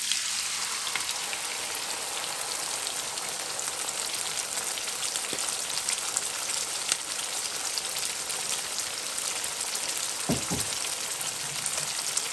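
Hot oil and vegetables sizzling steadily in a wok, with fine crackles, as sweet and sour sauce is poured in.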